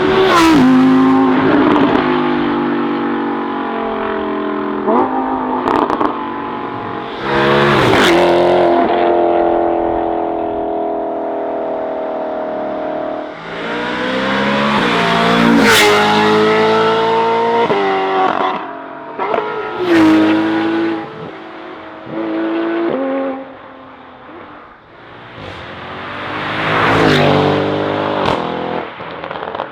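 Several sports cars accelerating past one after another, their engines revving hard and falling in pitch through gear changes, with sharp exhaust cracks at the shifts. The loudest passes come at the start, about halfway through, and around twenty seconds in.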